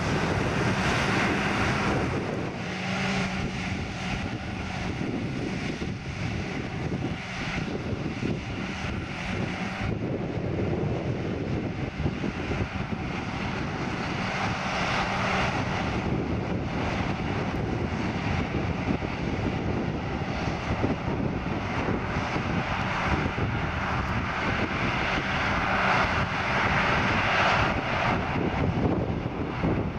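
John Deere 7750 self-propelled forage harvester working, chopping grass and blowing it into a trailer towed alongside by a tractor: a steady mechanical drone from the engine and cutting gear.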